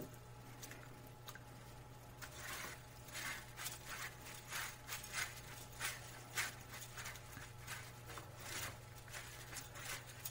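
Hands pressing and rubbing chicken pieces into breadcrumbs in a bowl: irregular scraping and rustling of the crumbs, beginning about two seconds in, over a steady low hum.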